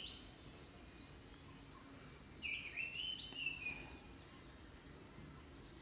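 A steady high-pitched insect-like chirring, with a faint wavering squeak of a marker writing on a whiteboard a little over two seconds in, lasting about a second and a half.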